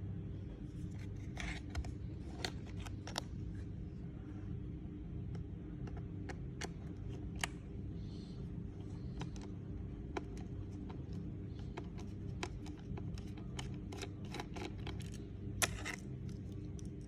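Irregular small clicks and light scrapes of hand tools and plastic parts being handled while a laptop is taken apart, over a steady low hum.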